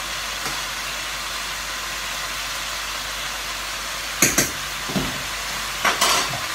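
Stir-fried vegetables sizzling steadily in a wok as they start to soften. From about four seconds in come a few sharp clatters of utensils against pans.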